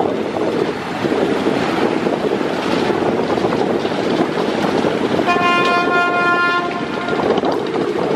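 A passenger river launch's horn gives one steady blast of about two seconds, starting about five seconds in, over a constant rush of wind on the microphone and moving water.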